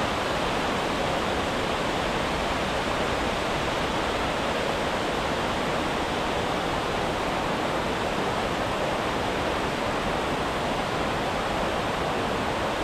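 Steady rush of water pouring over a small river waterfall.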